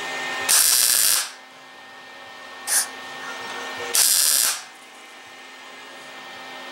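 MIG welder laying short tack welds to stitch a rust-repair patch into a steel fender: two bursts of arc crackle, each under a second and about three and a half seconds apart, with a brief blip between them. Between the welds a quieter steady hum carries on. The short, spaced tacks keep the heat down on the thin panel.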